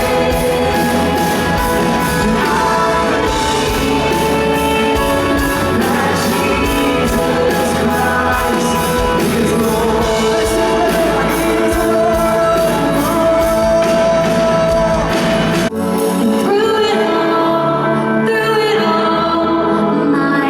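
Music with singing over a full band and a steady drum beat; about fifteen and a half seconds in, the drums and bass drop out and the song carries on more softly.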